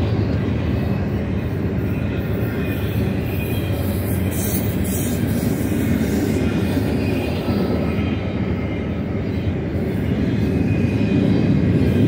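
BNSF double-stack intermodal container train rolling past: a steady rumble and clatter of steel wheels on rail, getting a little louder near the end.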